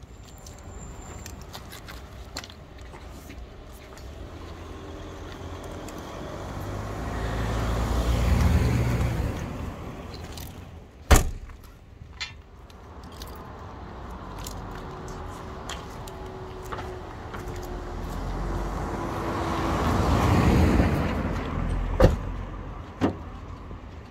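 Road traffic: two cars go by, each a rumble that swells up and fades away, one about eight seconds in and another about twenty seconds in. A few sharp knocks come in between and near the end.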